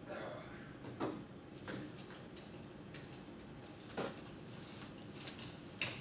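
A few small, sharp clicks and taps as a screwdriver and a tiny screw are worked against a hard drive's metal casing, trying to get the screw through a small hole.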